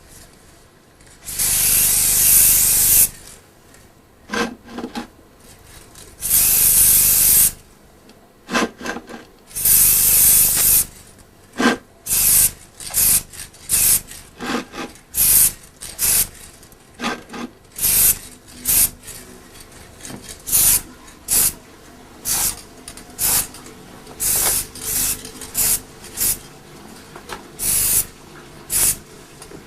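Aerosol can of Ford satin black paint spraying onto a primed rear differential part: three long hissing bursts, then a quick run of short bursts.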